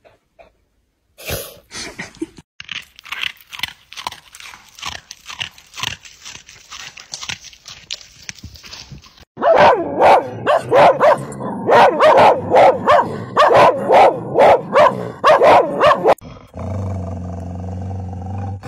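Dogs: first quick, breathy panting, then from about halfway a loud run of repeated barks, about two a second for some seven seconds; near the end a steady, low, drawn-out howl begins.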